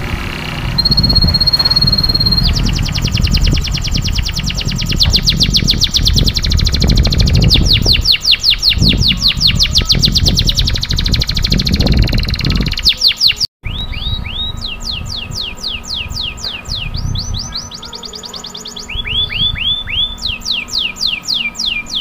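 Domestic canary singing a long, fast rolling song: a held whistle about a second in, then rapid repeated trills, then after a brief break in the middle, trills of quick falling notes. A low rumble sits under the first half.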